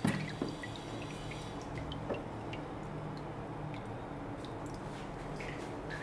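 Glycol-and-water solution dripping from a lifted stainless-steel ice candy mold back into the freezer's tank: scattered drops falling, with a knock right at the start and a faint low steady hum underneath.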